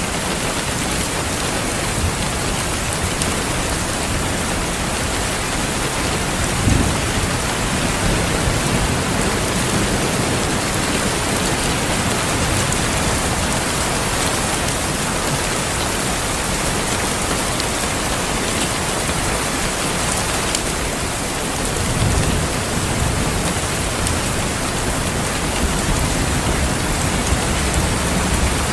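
Steady heavy rainfall, with low rumbles of thunder about seven seconds in and again a little past twenty seconds.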